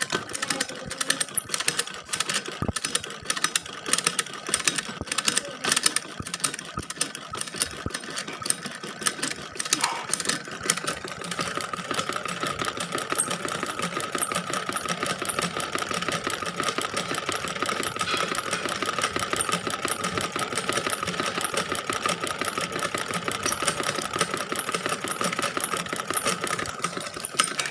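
Sewing machine stitching, first in uneven stop-and-start runs of clicking strokes, then from about eleven seconds in running steadily at speed with a constant high hum.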